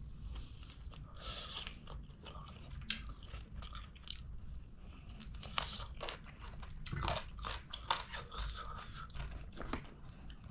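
Close-miked chewing and crunching of chicken curry and rice eaten by hand, with many short sharp mouth clicks, busier in the second half.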